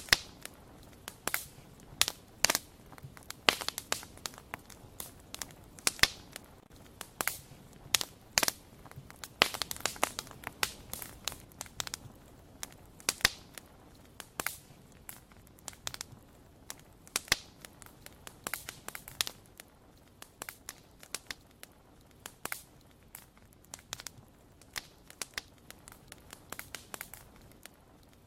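Wood fire crackling: irregular sharp snaps and pops over a faint hiss, coming thickest in bunches through the middle and thinning out toward the end.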